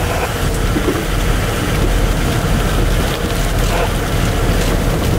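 Steady road and engine noise of a car driving, heard from inside the cabin, with a deep rumble underneath.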